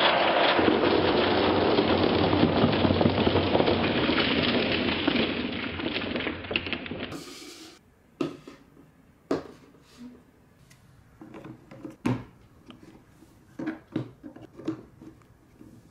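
A heap of marbles pours out of a tipped toy dump truck bed into a tray, a loud continuous clatter that thins out and fades over about six seconds. Then single clicks and knocks of plastic bricks and marble-run track pieces being set down and fitted together on a table.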